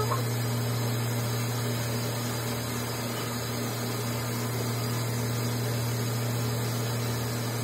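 Faucet running steadily into a metal sink, a continuous rush of water with a steady low hum underneath.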